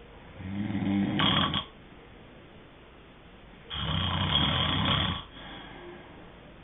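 A sleeping person snoring: two rough, drawn-out snores about three and a half seconds apart, each lasting about a second and a half.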